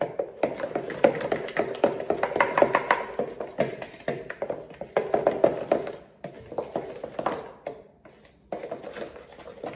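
Wooden spoon stirring wet cake batter in a mixing bowl, knocking and scraping against the bowl's sides in a rapid run of taps, with two short pauses.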